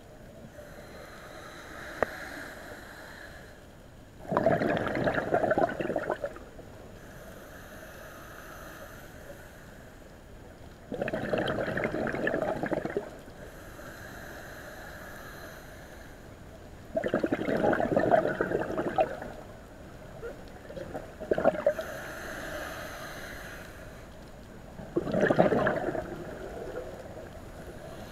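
Scuba diver breathing through a regulator underwater: a quiet hissing inhale, then a burst of bubbling exhaust, four breaths about six or seven seconds apart.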